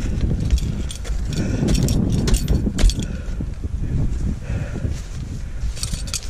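Ice axe picks and crampon points striking and kicking into snow-covered ice, several sharp hits in a cluster about two to three seconds in and again near the end. Climbing hardware clinks on the harness throughout, over a steady low rumble of movement on the helmet-mounted camera.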